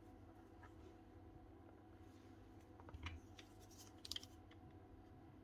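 Near silence with faint handling noises: a soft knock about three seconds in and a few small clicks just after four seconds, as a power tool's cable and a hand tool are picked up and handled.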